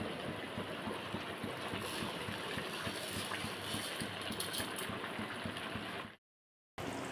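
Water and masala boiling hard in a large aluminium pot on a gas stove, a steady bubbling. Around two to five seconds in, rice is tipped into the boiling liquid with a brief rustling pour, and near the end the sound cuts out completely for about half a second.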